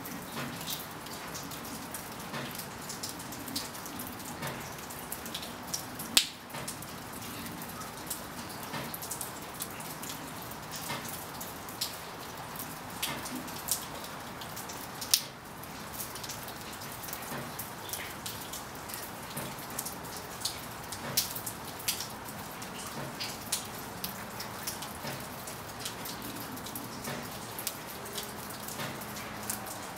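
Steady winter rain falling, with individual drops tapping sharply close by throughout; two louder drop taps stand out, one about six seconds in and one about halfway through.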